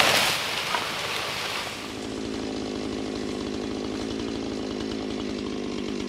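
A felled tree crashing down through branches, loudest at the very start and fading within the first half-second, then a two-stroke chainsaw idling steadily.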